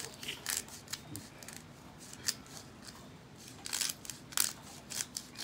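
A disposable black-pepper grinder twisted by hand, its grinding head crunching and clicking in short irregular runs with pauses between.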